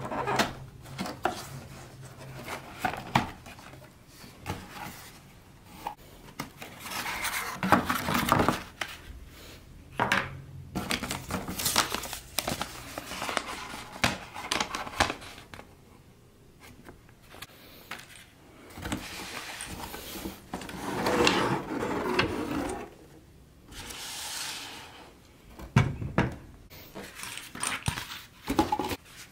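Unboxing handling sounds: a cardboard box being opened and pulled apart, a paper instruction sheet crinkling, and scattered knocks and clicks as the plastic toy claw machine and box are set down on a wooden table.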